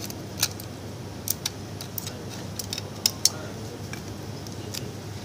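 Small sharp clicks of plastic smartphone housing parts being handled and pressed together, about eight scattered irregularly, two close together about three seconds in, over a steady low hum.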